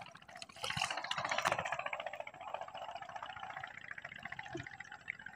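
A small engine running steadily with a fast, even pulse, with a splash of water and mud about a second in.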